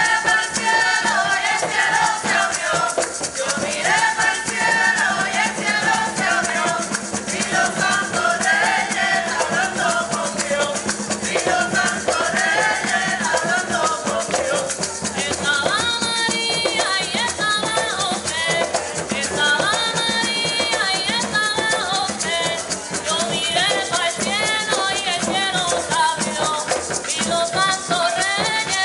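Two women singing traditional Puerto Rican Three Kings music live, over a rattle shaken steadily.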